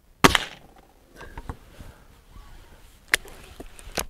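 Gamo Swarm Magnum .177 break-barrel air rifle firing one shot about a quarter second in: a single sharp crack with a short ring. A few light handling clicks follow, then near the end sharp clicks as the barrel is broken open to cock the rifle.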